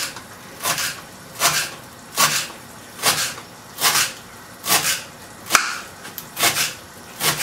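Kitchen knife chopping a bunch of fresh dill and parsley on a wooden cutting board: an even, unhurried rhythm of about nine cuts, one a little under every second.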